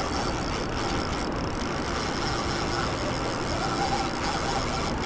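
Steady rushing noise of fast river current.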